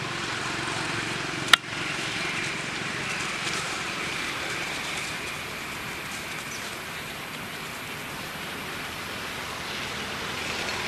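Steady outdoor forest ambience, an even hiss, with one sharp click about a second and a half in.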